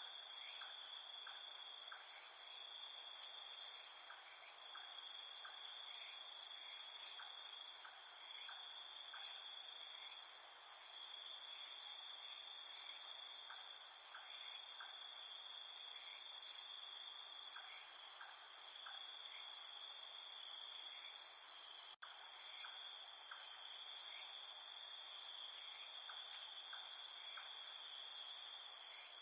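A chorus of crickets trilling without a break in a high, ringing band, with faint short chirps repeating lower down. About three quarters of the way through there is a split-second gap in the sound.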